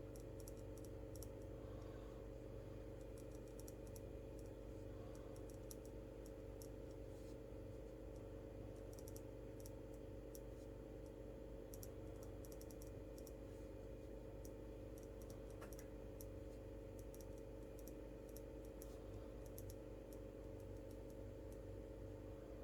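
Faint, irregular small clicks, in scattered clusters, over a steady electrical hum.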